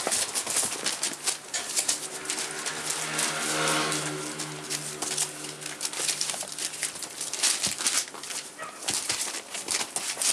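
Rough collie puppies scrambling on newspaper: the paper rustles and crinkles, with scattered scratches and taps. For about four seconds in the middle, a puppy gives a low, drawn-out grumble.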